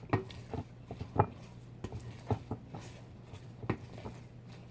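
Light, irregular clicks and taps of spoons against each other and a bowl as a vegetable dough is shaped into balls, over a faint low steady hum.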